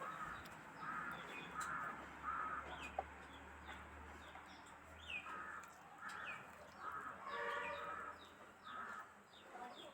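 Faint bird calls: a string of short harsh calls, roughly one or two a second, with small birds chirping higher up.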